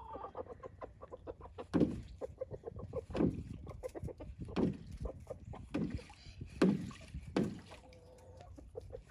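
Chickens clucking in their run: a steady string of short clucks with several louder calls about every second.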